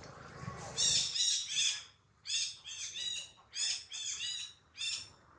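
Baby monkey giving short, high-pitched squealing cries in quick runs of two or three, about ten in all.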